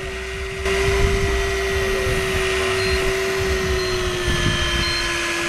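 Electric fishing reel's motor winding in line from a deep drop: a steady whine that gets louder about half a second in and sags slightly in pitch near the end.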